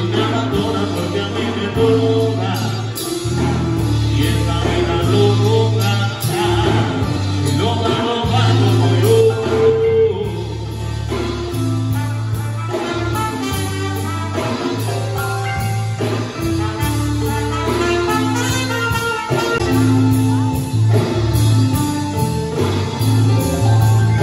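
Music: a song with a singer over a steady bass line.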